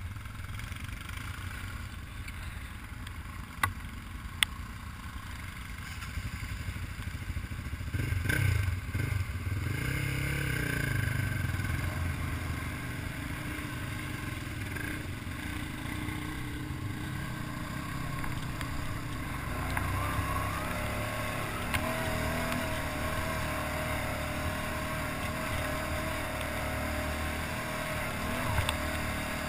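ATV engine running while riding a trail, revving up and easing off about eight to ten seconds in. Two sharp knocks come about four seconds in.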